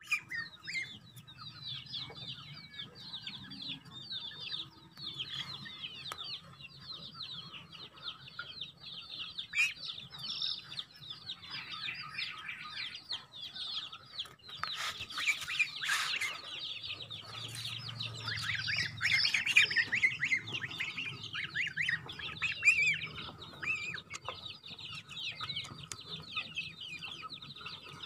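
Goslings about six weeks old peeping without a break in rapid, high-pitched, downward-sliding calls, several a second. A short burst of clatter comes about halfway through.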